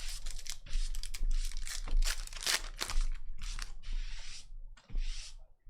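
Foil wrappers of Topps Cosmic Chrome baseball card packs crinkling and tearing as packs are opened, with cards ticking and sliding against each other in the hands: a rapid, irregular run of short crackles and clicks.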